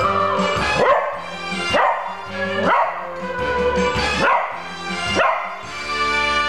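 Pembroke Welsh Corgi howling along to brass-led TV theme music, a string of short rising yelps about once a second that stop shortly before the end while the music plays on.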